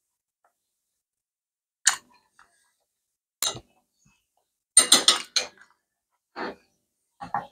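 Eating sounds: a metal fork clinking and scraping on a china plate of pasta, with mouth sounds of chewing. Short separate sounds with quiet between them, and a quick cluster of several about five seconds in.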